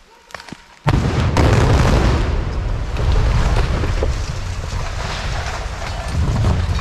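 Explosive demolition of a concrete road bridge. A few sharp cracks come first, then about a second in a loud blast, followed by a long low rumble as the deck collapses and debris comes down.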